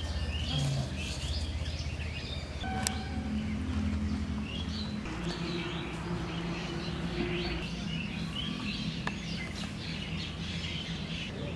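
Birds chirping in a rural yard over a steady low hum.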